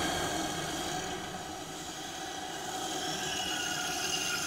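Intro sound effect under an animated logo: a steady, noisy rumbling drone with several faint held high tones, slowly fading.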